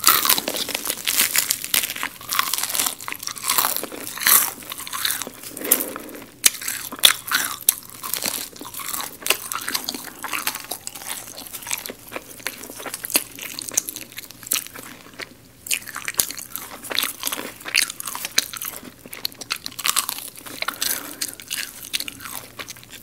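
Close-miked biting and chewing of crispy-coated fried chicken: rapid sharp crunches with wet chewing between them. The crunches come thick for the first half, thin out to chewing for a few seconds, then pick up again.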